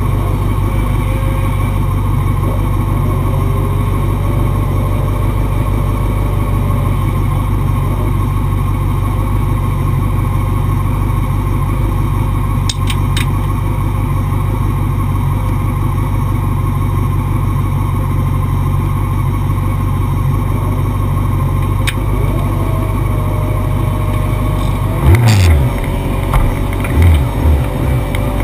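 Racing motorcycle engine noise, its pitch rising and falling, under a steady low rushing rumble. A few heavy low thumps come near the end.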